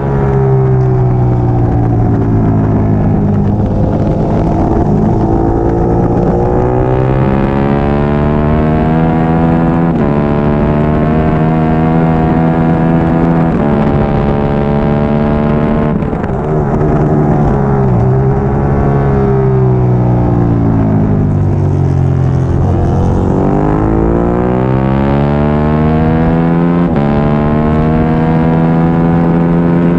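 Triumph Daytona 675R race bike's three-cylinder engine at racing speed, its pitch climbing through the gears with several sharp shift steps. About twenty seconds in it falls for a few seconds as the bike slows, then climbs hard again.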